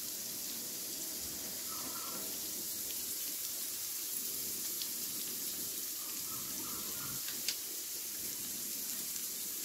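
Chopped onions and garlic sizzling steadily in hot oil in a kadai, with a few faint ticks.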